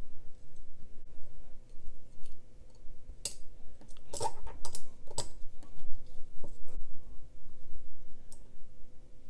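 Small metal knife parts clicking and tapping as they are handled and fitted together: a metal liner is pressed onto a folding knife's handle scale. A quick cluster of clicks comes about four to five seconds in.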